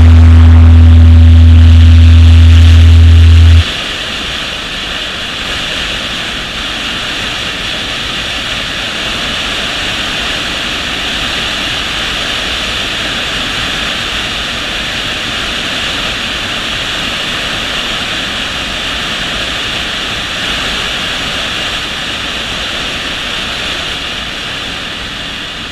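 A loud, low held music note cuts off about three and a half seconds in. It leaves a steady rush of wind and road noise from a motorcycle riding at speed, heard through a camera mounted on the bike.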